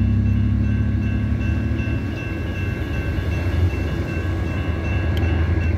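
Railroad grade-crossing warning bell ringing steadily as the crossing gates rise, and stopping near the end. Under it runs a low engine rumble.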